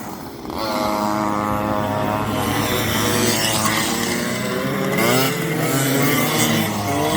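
Go-kart engine running at steady revs, then rising and falling in pitch over the last couple of seconds as it is throttled up and down.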